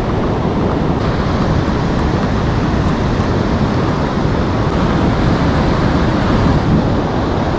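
Steady wind rumbling on the microphone over the continuous wash of ocean surf on the beach.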